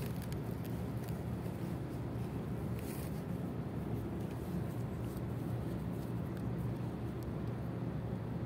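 Steady low rumble of waterfront background noise, with no distinct events.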